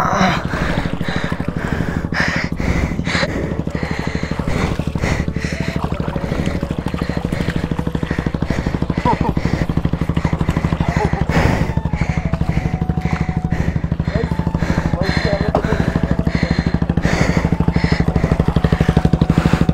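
Motorcycle engine idling steadily in a fast, even beat, pulsing a little louder near the end.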